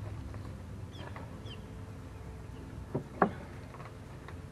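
Two sharp knocks about three seconds in, a quarter second apart, from the fence repair work, over faint bird chirps and a low steady hum.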